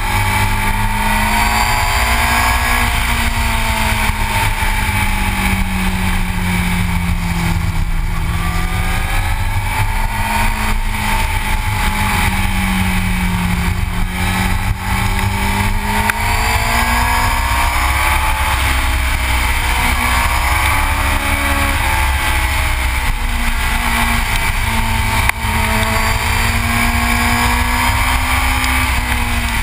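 Yamaha R6 sport bike's inline-four engine running at road speed, its pitch slowly rising and falling as the throttle opens and closes, over a steady rush of wind on the microphone.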